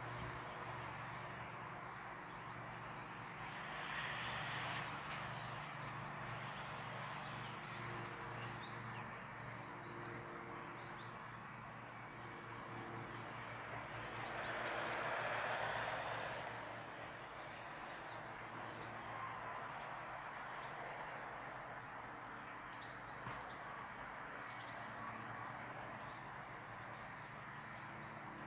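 Birds chirping over outdoor background noise, with faint steady tones underneath. A swell of rushing noise rises and falls a few seconds in, and a louder one comes about halfway through.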